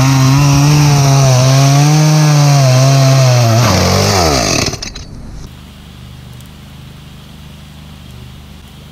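Champion chainsaw running at full throttle while sawing through a log, its pitch wavering under the load. About four seconds in the pitch falls away as the throttle is let off and the saw drops out. A much fainter steady low hum is left.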